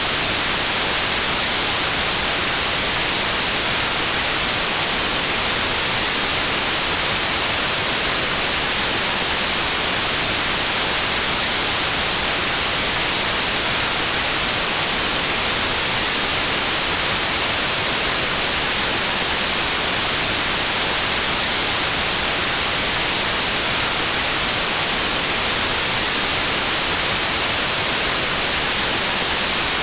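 Steady white noise: an even hiss, brightest in the high end, holding at one level without change.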